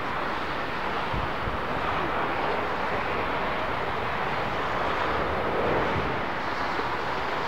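Four-engine Airbus A340-500 airliner's jet engines running as it rolls along the runway: a steady, even rush of jet noise.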